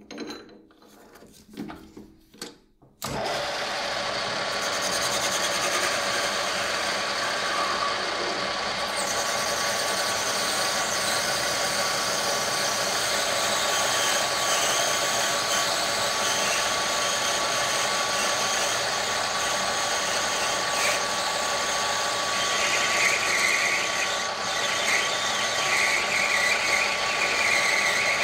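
A brass rod is set into a metal lathe's three-jaw chuck with a few light clicks and knocks. About three seconds in the lathe starts and runs steadily with a faint whine while the cutting tool turns the brass rod down, the cutting noise growing somewhat stronger near the end.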